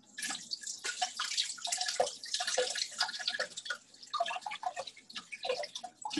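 Kitchen tap running, its stream splashing irregularly over a bunch of water spinach being rinsed under it.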